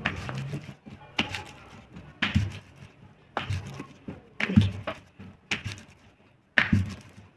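Wooden rolling pin rolling out a stuffed paratha on a round stone board, a short knock and rumble with each stroke, about once a second.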